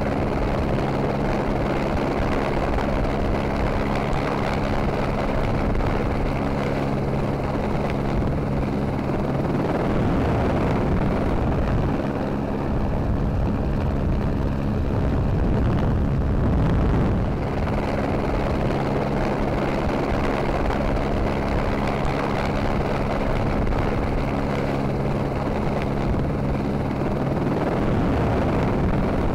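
Helicopter rotor and engine running with a steady, loud drone, picked up aboard the helicopter. A low steady hum within it cuts out and comes back a few times.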